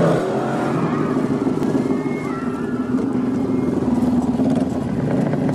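Motorcycle engines running loud and steady, coming up sharply at the start.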